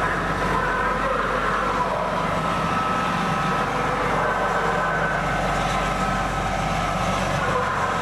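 Playback of a World War II combat recording of tank radio transmissions from the 1944 Battle of Guam: steady radio static and hum, with a faint wavering whine and no clear words.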